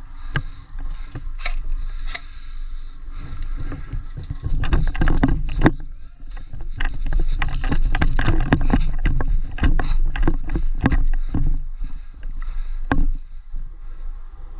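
Heavy low rumble, likely wind and movement on a body-worn camera microphone, with many sharp irregular clicks and knocks, most of them from about four to twelve seconds in.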